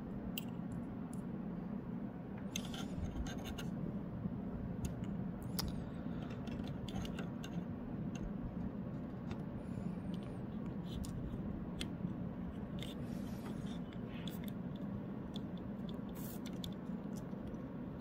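Small, irregular metallic clicks and scrapes of tweezers and a soldering iron tip against a typewriter's escapement dog as a broken tooth is soldered back on, over the steady hum of a fan.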